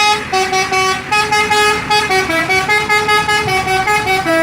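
Telolet horn on an Indonesian bus: a multi-tone musical air horn playing a fast run of short notes that step up and down in pitch, with a brief break about a second in.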